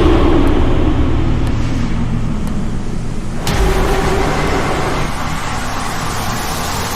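MINI John Cooper Works with an aftermarket Remus exhaust running on the road; the engine note falls over the first two seconds, and the sound changes abruptly to a brighter, noisier running about halfway through.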